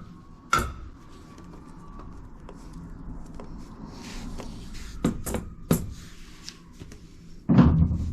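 Several separate knocks and clunks of things being handled, a cluster a little past halfway and the loudest near the end.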